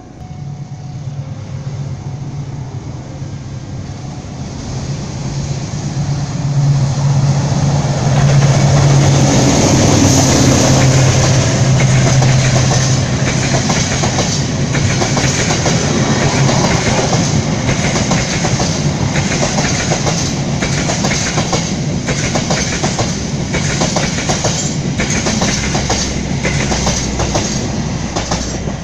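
A diesel-hauled passenger train approaches and passes close by. The locomotive's engine drone builds and is loudest about eight to twelve seconds in. After that the coaches' wheels clack steadily and repeatedly over the rail joints as the long train runs past.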